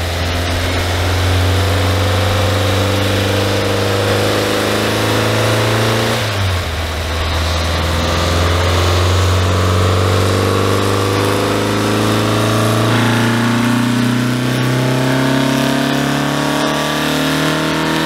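Air-cooled Volkswagen Beetle flat-four engine running under load on a chassis dyno: its note climbs steadily, drops suddenly with a gear change about six seconds in, then climbs steadily again.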